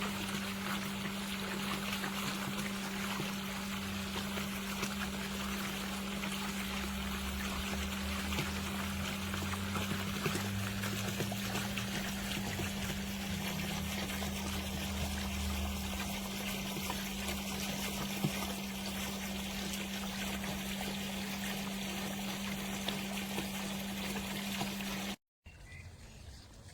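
Intex LED waterfall fountain's water splashing and trickling steadily, with a steady low hum underneath. The sound cuts off suddenly about a second and a half before the end, leaving a much quieter background.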